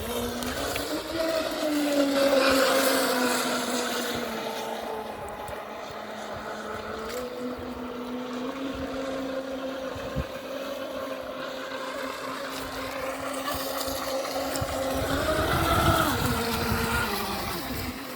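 Traxxas M41 remote-control boat's electric motor whining at speed across the water. The pitch rises about a second in, holds steady, and rises again and grows louder near the end as the boat runs close, then drops.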